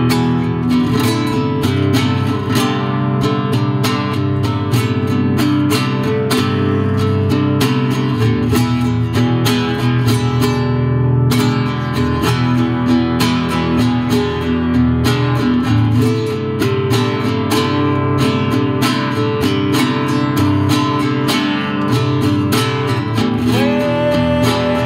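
Instrumental song passage led by a strummed acoustic guitar over sustained layered notes, with a note sliding upward near the end.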